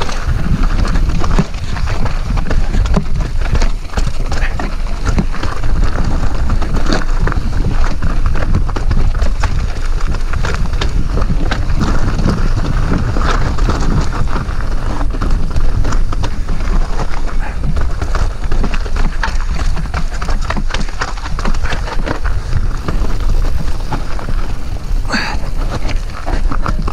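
Mountain bike riding fast down rocky singletrack: a constant clatter and rattle of tyres, chain and frame hitting rocks and gravel, with wind buffeting the microphone.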